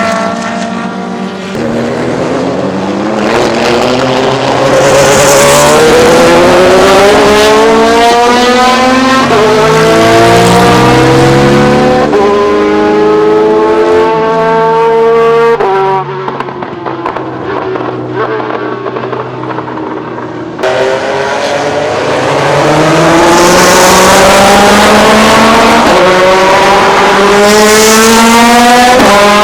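Ferrari F430 GTC race car's 4.0-litre V8 accelerating hard, its pitch climbing through the gears with sharp upshifts. About halfway through it drops lower and quieter for a few seconds, then jumps back up and climbs again through more gears.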